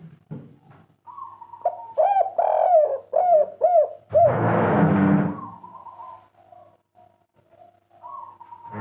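Spotted dove (derkuku/tekukur) cooing: a quick run of about seven rounded coo notes, the 'kuk 3' song type, about two seconds in. It is followed by a loud rush of noise lasting about a second, then softer coo notes.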